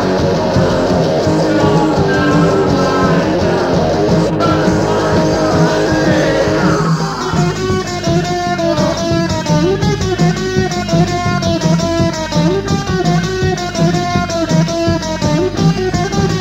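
Instrumental passage of a rock song, with electric guitar and bass guitar and no singing. About seven seconds in, the full, dense sound thins out to a repeating picked guitar figure.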